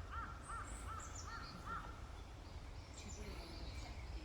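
A bird calling in a quick run of short, arched notes, about three a second, stopping a little before halfway, while other small birds chirp higher up.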